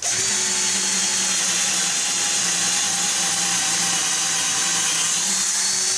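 AEG BS14 G3 Li 14-volt cordless drill-driver in first speed and drilling mode, its motor whining at a steady pitch as a 10 mm bit bores into a wooden block.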